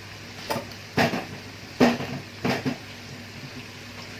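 About five sharp knocks and clatters of kitchen pots and utensils, spread over the first three seconds.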